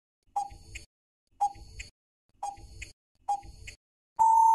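Quiz countdown-timer sound effect: four short ticks about one a second, then a loud, steady beep begins near the end, marking that the answer time is up.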